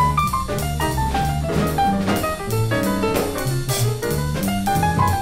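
Jazz background music, with a drum kit keeping a steady beat under a stepping bass line and melody notes.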